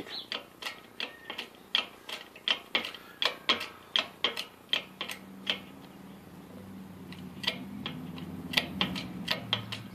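Hydraulic shop press being hand-pumped: a quick run of clicks, about three a second, as the ram bears down on a bent lathe cross-slide crank handle to straighten it. The clicks stop about five seconds in, and a steady low hum with a few single clicks follows as the crank is handled.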